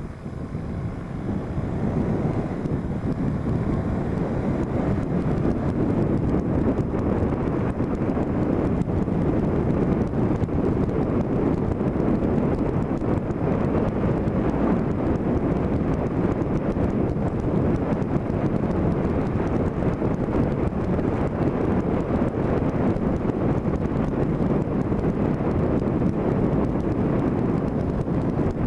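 Wind rushing over the microphone of a camera clamped to a moving vehicle, with road and engine noise underneath. It builds over the first two seconds as speed picks up, then holds steady.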